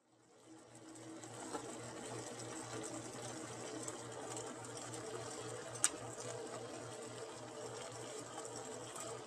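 A steady mechanical hum with a fast, even throb, fading in over the first second, under soft sounds of a metal spoon stirring samosas into chickpea gravy in a pan. About six seconds in there is one sharp click of the spoon against the pan.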